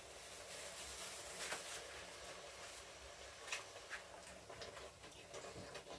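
Faint, scattered clicks and light knocks of kitchen items being handled, over low room noise.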